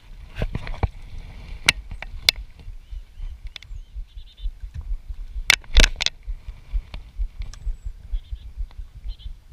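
Handling noise on a chest-mounted action camera: a steady low wind rumble with rustling, broken by several sharp clicks and knocks as a spinning rod and reel is handled and cast, the loudest cluster of clicks about halfway through.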